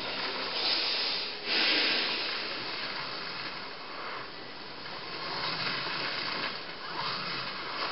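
Cartoon electricity sound effect heard off a television: a rushing electrical crackle that surges hardest about a second and a half in, then swells again a couple of times.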